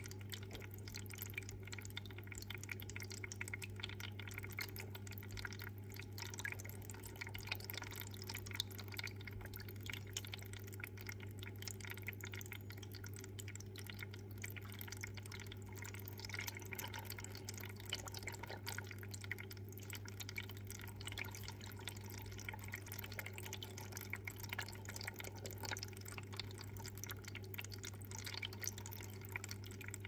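Aquarium water trickling with fast, irregular drips and small splashes over a steady low hum.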